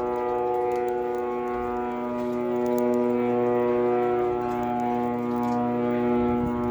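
Steady, loud buzzing drone of a military surveillance drone (the 'zanana') circling overhead, holding one pitch with only slight wavering.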